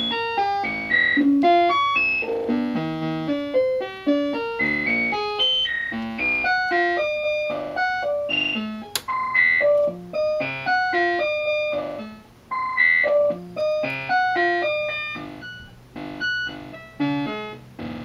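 Modular synthesizer voice driven by a four-knob step sequencer, playing a fast, jumpy sequence of short plucked notes that each start sharply and decay, a few notes a second. A single sharp click about nine seconds in.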